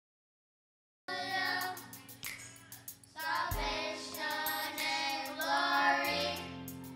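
Singing voices with instrumental accompaniment, starting suddenly about a second in after silence.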